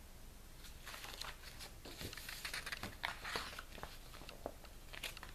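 Paper and cover of a picture book handled as it is closed and turned over: a quiet run of short crinkles and taps.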